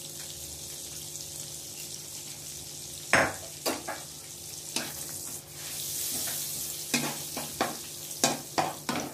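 Butter frying in a kadai with dried red chillies and cumin seeds, a steady sizzling hiss that grows louder about six seconds in. From about three seconds in, a spatula knocks and scrapes against the pan in a string of sharp clicks as the spices are stirred.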